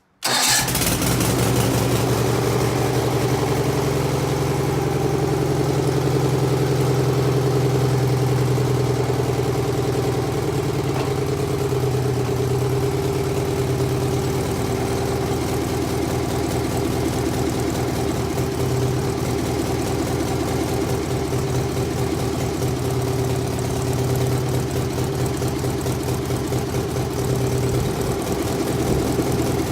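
Stump grinder's gas engine running steadily, a constant hum that cuts in suddenly just after the start.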